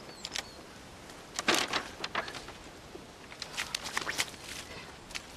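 Footsteps in wet mud, in two short clusters of scuffing, sticky steps, the first about a second and a half in and the second near the four-second mark.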